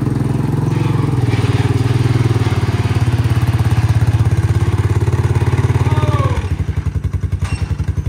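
ATV engine running steadily under load as it pushes a sprint car up a trailer ramp, dropping to a slower, choppier idle about six seconds in. A brief squeak comes just before the engine drops.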